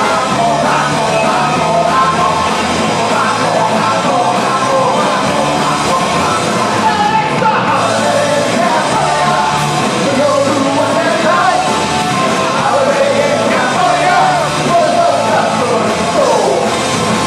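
Punk rock band playing live and loud, with electric guitars, bass and drums, and the singer shouting the vocals over them.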